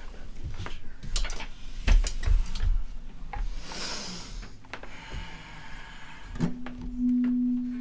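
Scattered clicks and low knocks as the jazz trio readies its instruments, then a single steady low note held from about six and a half seconds in, the start of the tune.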